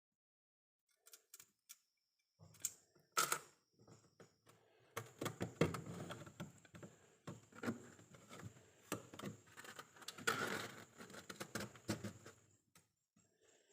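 Freezer frost crackling and crunching: a few scattered small clicks at first, then a dense run of them from about five seconds in that stops shortly before the end.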